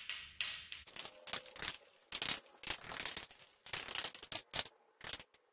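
A spoon stirring mayonnaise and ketchup together into cocktail sauce in a small pot, making irregular scrapes and clinks against the pot's sides.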